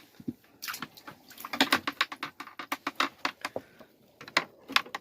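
An irregular run of sharp clicks and taps, a few a second, like gear being handled.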